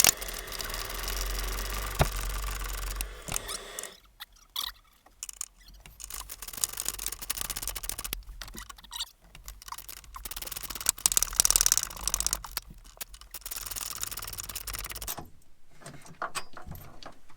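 Irregular metallic clicks, clinks and scrapes of nuts and bolts being handled and fitted, with a low hum that stops about four seconds in.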